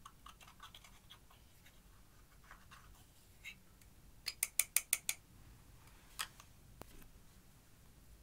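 Pressed eyeshadow being scraped and crumbled in its plastic compact with a small tool, light scratchy clicks. A little past the middle the upturned compact is tapped about seven times in quick succession to knock the crushed powder out, followed by a couple of single clicks.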